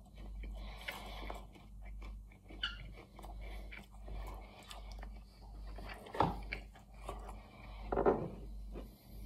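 Close-miked chewing of roast chicken pie and its pastry, with many small wet mouth clicks and crackles. Two louder bursts of sound come about six and eight seconds in.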